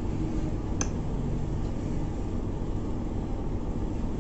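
Steady low background hum of room noise, with a single faint click about a second in.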